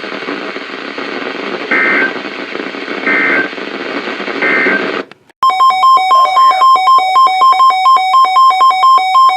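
Hissy weather-radio broadcast carrying three short warbling bursts of the EAS/SAME digital code, the end-of-message signal after the warning just read. About five seconds in, a loud buzzy electronic alert tone starts, beeping in two alternating pitches about four times a second, which announces the next warning.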